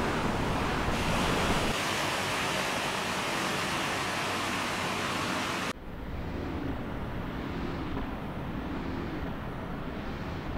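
Heavy surf and wind noise from waves breaking over rocks. A bit over halfway through it cuts off abruptly to a quieter low rumble with faint tones that waver up and down slowly.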